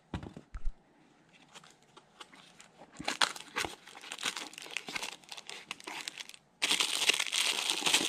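Cardboard box packaging being opened and handled: a few clicks, then scattered rustles and scrapes. About two-thirds of the way in, loud steady crinkling of plastic wrapping begins as a plastic-bagged coiled cable is pulled out.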